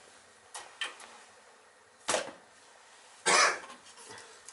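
A few sharp clicks and clacks of small parts being handled during work on a gas boiler's control, with a person coughing a little after three seconds in.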